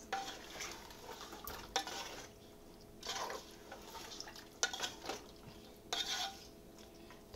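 A wooden spoon stirring mutton pieces, onions, whole tomatoes and water in a metal pressure-cooker pot, scraping against the pot in several short strokes at uneven intervals.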